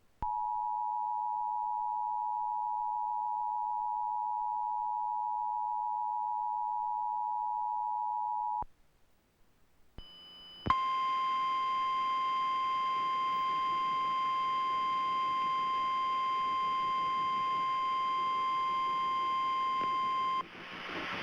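Emergency Alert System attention signal: the two-tone alert (853 and 960 Hz together) held steady for about eight and a half seconds, then cutting off sharply. After a short gap and a brief high blip, a single steady tone slightly higher in pitch, the National Weather Service 1050 Hz warning tone, sounds for about ten seconds. It signals that a tornado warning message follows.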